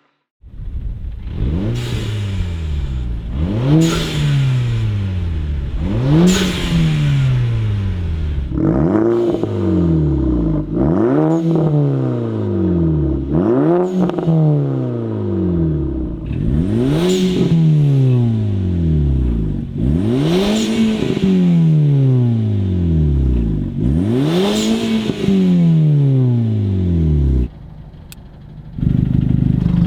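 VW MK5 GTI's 2.0-litre turbocharged four-cylinder revved repeatedly through its exhaust, about ten blips, each rising in pitch and falling back toward idle. The level drops briefly near the end.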